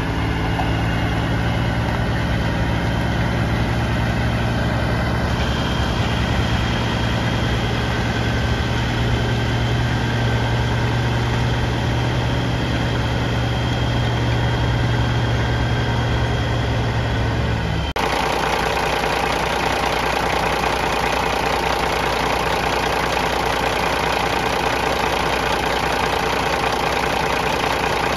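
Caterpillar 3406E inline-six diesel of a Kenworth W900 log truck idling steadily. About two-thirds of the way through, the sound changes abruptly from a low, even hum to a brighter, closer engine clatter, heard up at the open engine bay.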